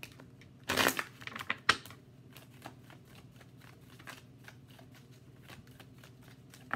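A deck of tarot cards shuffled by hand. There is a loud flurry of card slaps about a second in, then a run of light, irregular card clicks and flicks.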